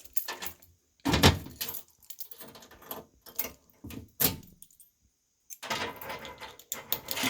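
A bunch of keys jangling and clicking as a key is handled at a Simplex drill key switch station, with a sharper knock about a second in and a brief pause shortly before the end.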